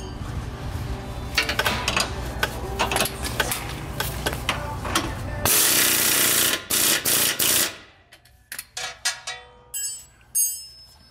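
Ratchet clicking while tightening the rear shock bolts, over a steady hum. About halfway through, an impact wrench runs in one long burst and then three or four short bursts, followed by a few scattered clicks of tools.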